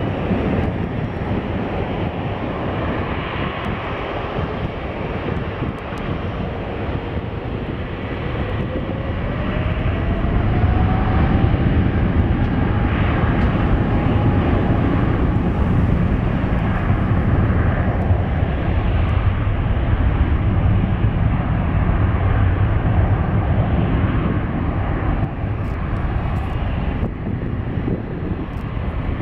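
Air India Boeing 777's twin GE90 turbofans spooling up to takeoff thrust: a whine that rises in pitch about eight seconds in, then a louder, steady engine rumble as the jet begins its takeoff roll.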